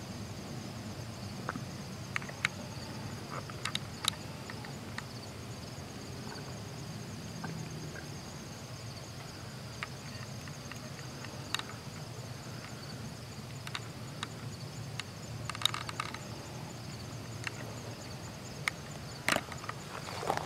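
Evening insects trilling steadily in two high, even bands, with scattered sharp clicks and snaps over a low background rumble.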